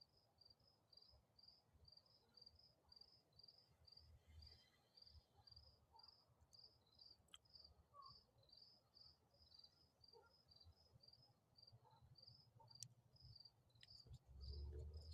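Crickets chirping faintly in an even, steady rhythm of high chirps, a little over two a second.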